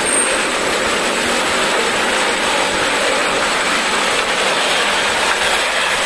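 TransJakarta city bus driving past close by: steady engine and road noise with a mechanical rattle.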